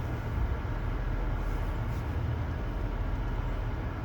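A vehicle engine running steadily at low revs, a low rumble, while the vehicle creeps in reverse.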